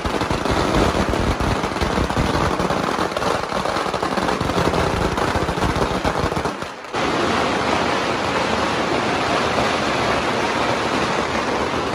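A long string of Chinese firecrackers going off in a rapid, unbroken crackle of sharp bangs. The din dips briefly just before seven seconds in, then carries on.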